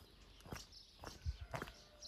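Steady footfalls, about two a second, each a short knock.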